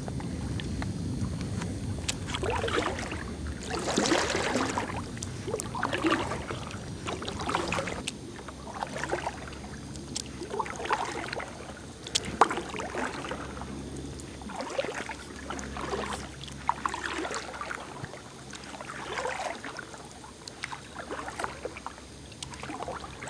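Kayak paddle strokes dipping and swishing through calm water, roughly one stroke a second, with a steady low rumble underneath. A single sharp click comes about halfway through.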